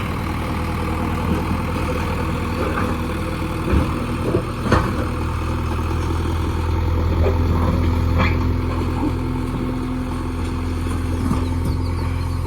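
Diesel engine of an earthmoving machine running steadily under work, with a few sharp metallic clanks.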